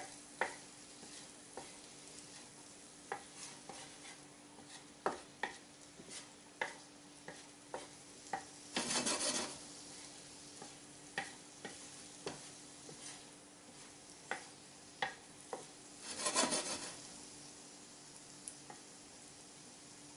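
Whelk meat and garlic sizzling in a non-stick frying pan while a wooden slotted spatula stirs them, tapping and clicking against the pan many times. There are two longer, louder swishes of stirring, about nine and sixteen seconds in, over a faint steady hum.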